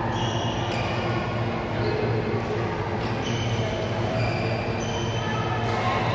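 Badminton play on an indoor court: many short high squeaks of sports shoes on the court floor and a few light racket hits on the shuttlecock, over a steady low hum.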